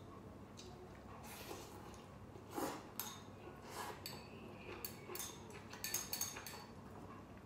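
Eating utensils clinking against a bowl: a series of light, irregular clinks.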